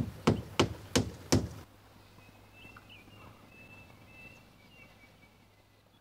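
Acorn woodpecker tapping its bill on tree bark: five sharp knocks, about three a second, in the first second and a half.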